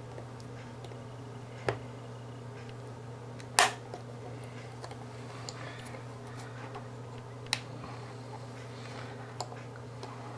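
Plastic case of an Android TV box clicking and snapping as a thin pick pries at the seams between its pieces: four sharp clicks, the loudest about three and a half seconds in, with fainter ticks between, over a steady low hum.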